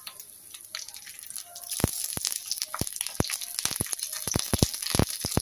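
Tempering (tadka) of mustard seeds, cumin, dried red chillies and curry leaves sizzling and spluttering in hot oil in an iron kadai. About two seconds in, the sizzle gets much louder, full of sharp irregular pops and crackles.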